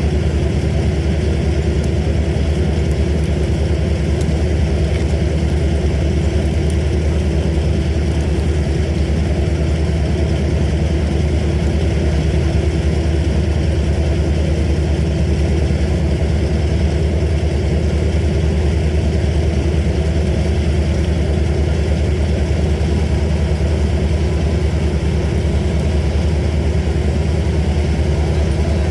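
A machine engine running steadily at a constant speed, a low even drone with no change in pitch or level.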